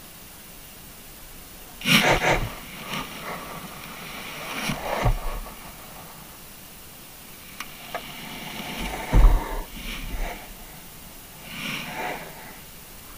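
Irregular knocks and scrapes on a deep-sea camera rig, heard through the underwater camera housing over a steady hiss, as sharks bump and brush against it on the seabed. The loudest is a deep thump about nine seconds in.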